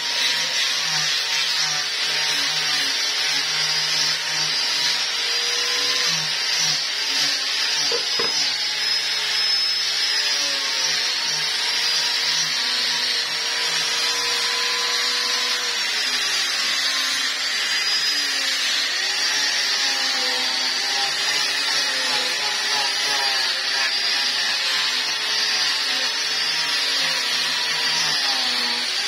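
Electric angle grinder with a sanding disc running continuously and sanding a carved sonokeling (Indian rosewood) ashtray, its motor whine dipping and rising in pitch as the disc is pressed into and eased off the wood, over a steady rough rasp of abrasive on wood.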